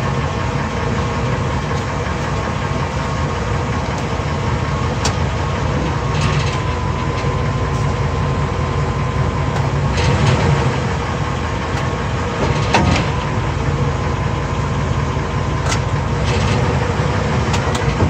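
A 2002 Ford F150's V8 engine idling steadily, heard from beneath the truck by the drive shaft, with a few short knocks about five, ten and thirteen seconds in.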